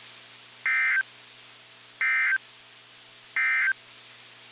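Emergency Alert System end-of-message signal over NOAA Weather Radio: three short bursts of SAME digital data, each about a third of a second long and spaced about 1.4 s apart, over steady radio hiss. The bursts mark the end of the alert broadcast.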